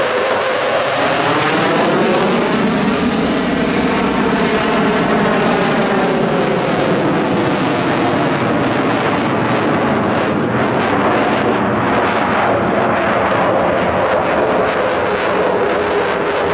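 Eurofighter Typhoon fighter jet flying by, its twin jet engines loud and steady throughout, with a slow rise and fall in the tone of the noise.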